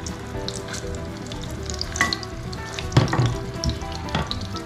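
Pike fish patties sizzling and crackling as they fry in hot oil in a pan. A few louder sharp knocks come about two, three and four seconds in.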